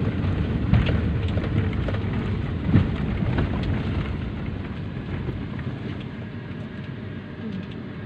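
Car cabin noise from a car driving slowly over a rough track: a steady engine and road rumble with two louder knocks about one and three seconds in. The low rumble eases off in the second half.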